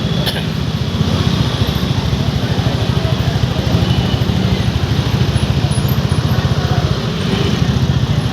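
Royal Enfield Classic 350's single-cylinder engine running steadily under way, its exhaust giving a fast, even low thump. A brief click just after the start.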